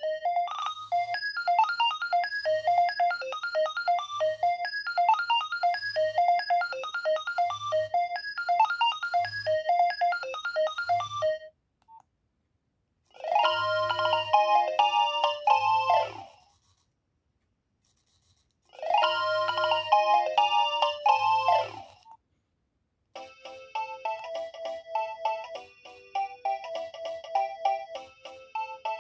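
Nokia 2300 mobile phone ringtones playing in turn, as simple electronic melodies. A busy tune runs for about eleven seconds and stops. A short phrase then plays twice with silent gaps around it, and another melody begins about two-thirds of the way through.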